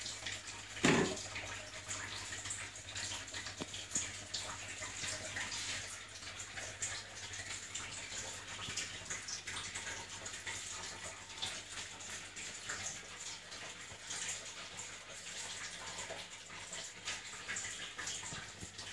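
Steady hiss of running water with small splashy ticks over a steady low hum. A single thump comes about a second in.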